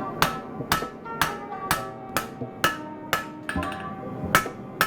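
Hand hammer striking a hot Damascus steel billet on an anvil, about two blows a second, each blow ringing. The billet's corners are being knocked back so the end does not fish-mouth when it is drawn out.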